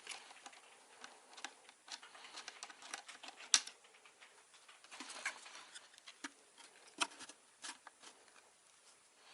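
Scattered small clicks, taps and rustles of hands working on computer parts and tools, with one sharper click about three and a half seconds in.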